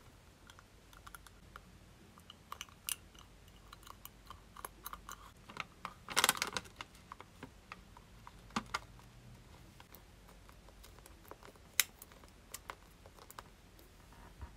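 Fingers handling a clear plastic piece and thick sticky tape: scattered light clicks and taps, with a short crinkling burst about six seconds in and a sharp click near the end.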